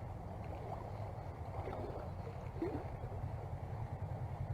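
Steady low rush of river water flowing below a dam.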